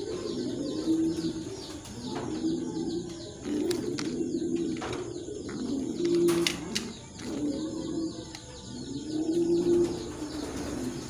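Beauty Homer pigeons cooing, a low coo repeating every second or two, over a fast high-pitched chirping and a few sharp clicks.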